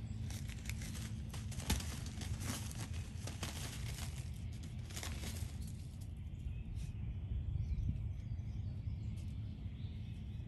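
A basenji puppy's paws digging and scratching in dry pine needles on top of plastic-wrapped pine straw bales: rapid rustling and crinkling for about the first five seconds, then only scattered rustles as she moves off through the needles. A steady low rumble runs underneath.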